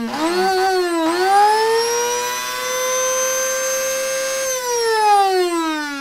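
Electric blade coffee grinder grinding whole coffee beans. The motor whine rises as it spins up, holds a steady high pitch, then falls away as it slows down about four and a half seconds in.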